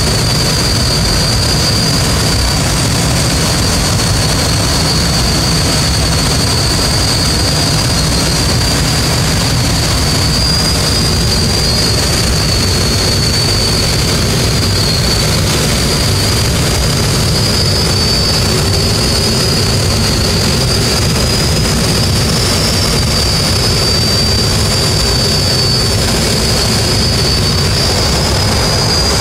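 Air rushing past a Schweizer SGS 2-33 glider in flight, heard inside the cockpit as a loud, steady rush, with a thin, high, steady whistle over it.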